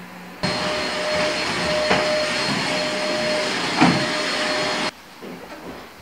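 Vacuum cleaner running with a steady hiss and a faint motor whine. It starts suddenly about half a second in and cuts off suddenly about five seconds in, with two knocks, the louder one near the four-second mark.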